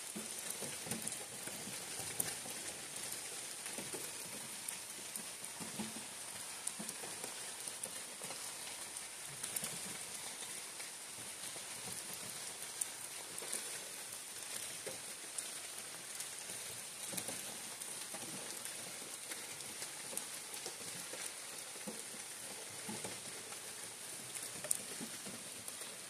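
Steady rain falling through a leafy forest canopy: an even hiss with many scattered drops ticking and tapping close by.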